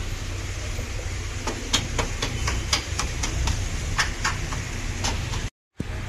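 Irregular light metallic clicks and taps of bike parts and tools being handled as a motorcycle's swing arm and axle are fitted back in, over a steady low hum. The sound cuts out for a moment near the end.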